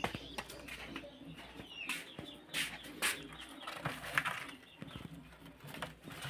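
Scattered knocks, clicks and rustling from a lattice plastic basket being handled and tipped, with brief bird calls in the background.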